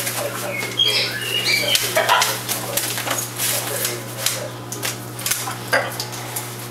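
Blue-and-gold macaw bathing in a sink under a running tap, beating its wet wings in a rapid, irregular series of flutters and splashes.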